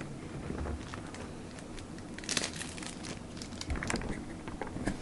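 Wrapper of a 1995 Skybox Premium football card pack crinkling and tearing as it is opened by hand. The crackling comes in scattered bouts, loudest about two and a half seconds in and again near four seconds.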